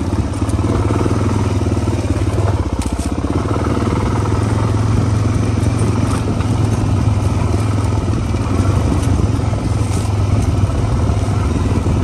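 Off-road motorcycle engine running steadily while being ridden along a dirt trail, with a few clicks and rattles over the ride.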